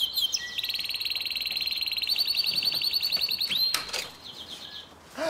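Electronic doorbell ringing: a high, rapid warbling trill that ends in a short rising glide after about three and a half seconds.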